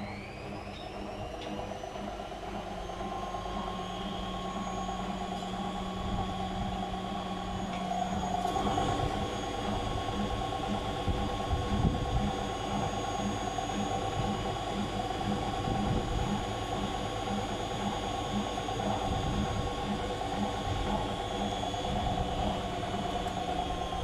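Whirlpool FL 5065 front-loading washing machine spinning at 600 rpm with its door open: a steady motor whine over the rumble of the turning drum, having just come up to speed. From about eight seconds in, a low pulse beats about twice a second under the whine.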